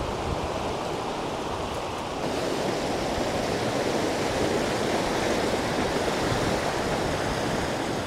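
A swollen, muddy snowmelt creek rushing swiftly over rocks in a steady wash of noise, running high with spring runoff. About two seconds in it grows a little louder and brighter.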